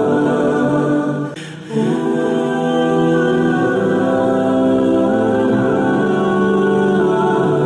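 Background music of sustained choir-like voices holding slow chords, with a brief dip in loudness about a second and a half in.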